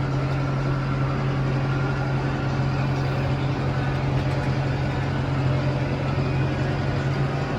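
Tractor engine running steadily at an even speed, a constant low hum.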